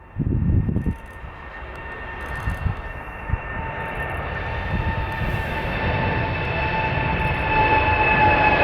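Airbus A330-800neo's Rolls-Royce Trent 7000 jet engines at takeoff power, a steady rumble with a high engine whine, growing steadily louder as the aircraft comes closer. A brief low rumble sounds right at the start.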